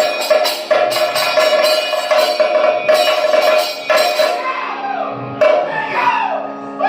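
Live Kathakali music: a steady drone under dense metallic and drum strikes in quick rhythm. A singer's voice comes in, sliding in pitch, over the last couple of seconds.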